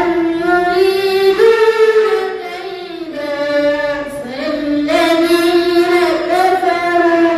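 A young boy's voice reciting the Quran in a drawn-out melodic chant, holding long, high notes that bend and step in pitch.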